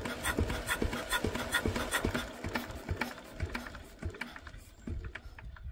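Lister D petrol stationary engine being turned over by its starting handle without firing: a rhythmic clicking and knocking about two and a half times a second that slows and dies away about four seconds in.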